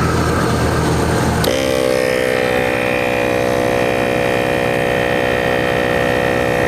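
A low rumble, then a sharp click about one and a half seconds in as an ARB 12-volt portable air compressor comes on. The compressor then runs with a steady pitched hum, dipping slightly at first, as it pumps up a flat car tyre.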